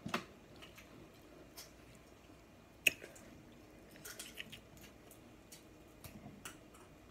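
A person eating seafood boil close to the microphone: faint wet chewing and squishy mouth smacks with scattered small clicks, one sharper click about three seconds in.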